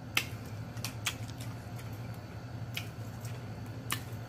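Close-up chewing with lip smacks and wet mouth clicks: about five sharp, irregularly spaced clicks over a faint steady low hum.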